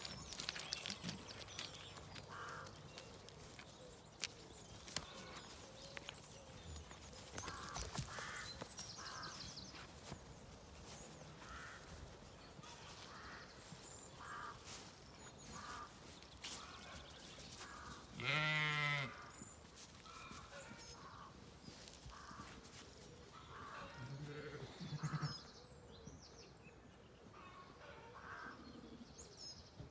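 Zwartbles sheep bleating: one long, quavering bleat about two-thirds of the way through, the loudest sound, and a shorter bleat a few seconds later, over faint scattered clicks and rustles from the flock.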